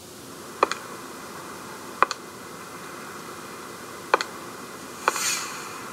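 Four sharp clicks, each quickly doubled, spaced a second or two apart over a faint steady hiss with a thin high tone.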